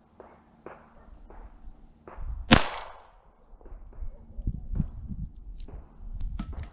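A single sharp shot from a Beretta U22 Neos .22 LR semi-automatic pistol about two and a half seconds in, with a short ringing tail. Fainter clicks and knocks come before and after it.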